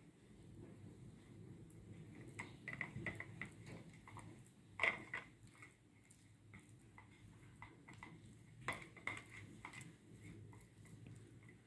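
Faint scraping, tapping and light clinks of fingers and a masala-coated fish steak against a stainless steel plate as the spice paste is rubbed onto the fish, with a sharper knock about five seconds in.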